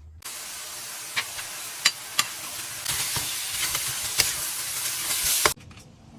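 Food frying in a hot pan, a steady sizzle with sharp pops of spitting oil. It grows louder about three seconds in and cuts off suddenly near the end.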